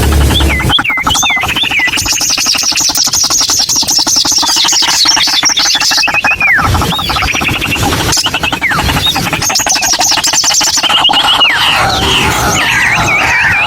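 White-breasted waterhens calling: a dense, loud run of rapid harsh repeated notes, with higher whistled slurs and trills over the top.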